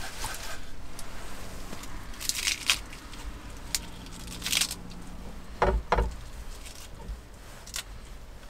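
Crisp lettuce leaves being torn apart by hand and dropped into a metal cup: short, scattered crackling tears, with two low knocks about halfway through.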